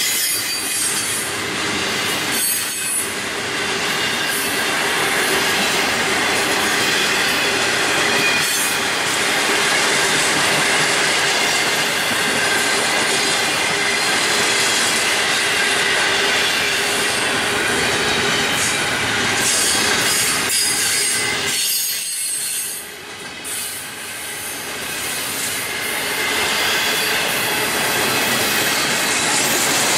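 Florida East Coast Railway intermodal freight train rolling past, its wheels clacking over the rail joints with a steady squeal from the wheels. It dips briefly quieter about three-quarters of the way through.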